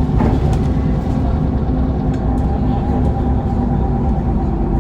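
Mercedes-Benz Citaro CNG city bus under way, heard from inside: the gas engine and ZF Ecomat automatic gearbox running with a heavy steady rumble and a steady whine above it.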